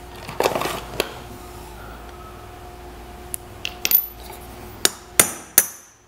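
Scattered light metal clicks and knocks from a new wheel bearing and steel sockets being handled on a Suzuki GS150 front hub, with a rustle near the start and the sharpest knocks in the second half, over a faint steady hum.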